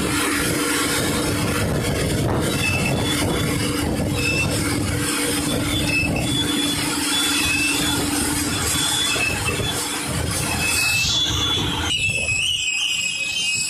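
Self-loading concrete mixer at work: steady engine and machinery noise with a constant low hum and short high-pitched squeaks now and then. About twelve seconds in, the low part of the sound cuts out abruptly, leaving a thinner, higher sound.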